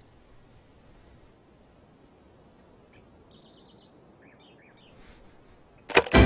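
Faint outdoor ambience with a few brief, faint bird-like chirps in the middle. Near the end a click sounds as the radio's button is pressed, and loud plucked-string folk music starts.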